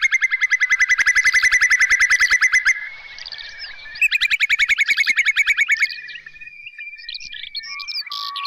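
Whimbrel calling: two long rippling trills of rapid repeated notes, about ten a second, followed by fainter whistled notes near the end.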